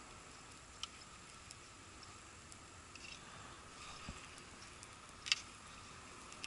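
A few faint clicks and ticks from handling a baitcasting reel and rod, the sharpest about five seconds in, over a faint steady hiss.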